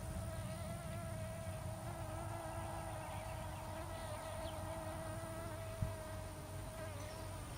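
A steady, high-pitched insect buzz, holding one slightly wavering pitch, over a low rumble.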